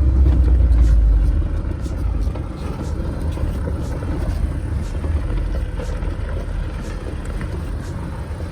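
Petrol Mahindra Thar driving off-road: a steady low vehicle rumble, loudest in the first second and then settling a little quieter.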